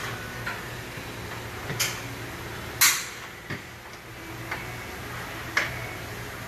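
Workshop sounds: a steady low hum with a few sharp metallic clicks and knocks from tools being handled. The loudest knock comes about three seconds in.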